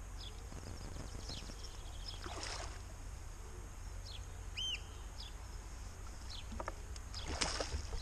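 Wind buffeting the microphone, with a hooked fish splashing at the surface as it is played toward the landing net, twice, about two and a half seconds in and again near the end. A few short bird chirps sound in the background.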